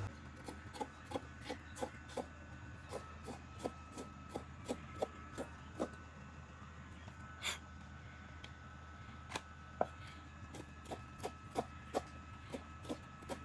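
Cleaver chopping on a thick wooden chopping board: sharp, even knocks about three a second, which pause for a few seconds midway and then resume.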